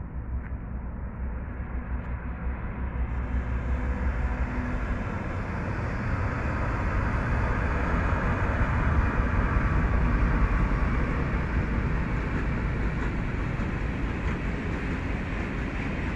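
Freight train passing close by, a locomotive and then a long string of hopper wagons: a steady rumble of wheels on the rails that grows louder over the first ten seconds or so and then eases slightly.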